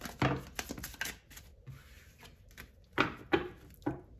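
A deck of tarot cards being shuffled by hand: a run of quick papery taps and slaps, with a few louder slaps about three seconds in.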